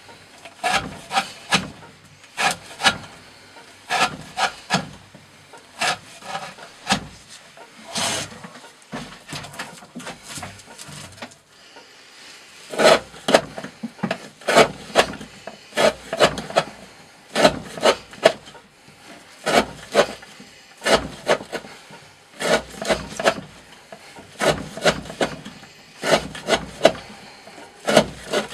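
D2 steel knife blade slicing through thick 20 mm rope, cut after cut, about one to two strokes a second, with a brief lull about a third of the way in.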